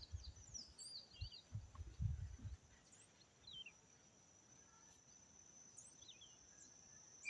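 Quiet outdoor ambience: a steady high insect trill with scattered short, falling bird chirps. A few low thumps come in the first two and a half seconds.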